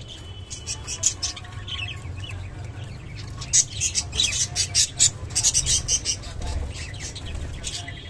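Budgerigars chattering, with brief chirps and quick runs of sharp clicks, the clicking thickest and loudest in the middle.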